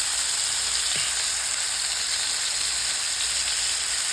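Swordfish frying in avocado oil in a pan: a steady, even sizzle.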